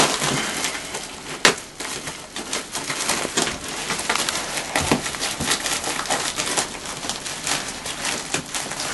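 Crinkling and crackling of an insulated flexible air duct's plastic vapor-barrier jacket as it is handled and cut, a dense run of small crackles with a sharp snap about a second and a half in.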